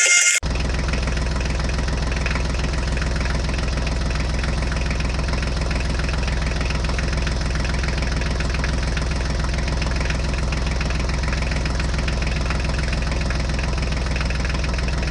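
Small engine of a home-built mini tractor idling steadily with a rapid even beat. It cuts in abruptly about half a second in.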